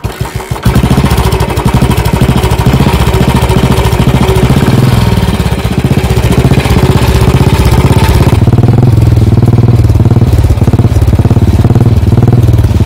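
A Royal Enfield Bullet 350 (new-generation UCE model), with its single-cylinder four-stroke engine, is kick-started and catches under a second in. It then runs loud with a steady thump, and about eight seconds in the higher part of its sound drops away as it settles to idle.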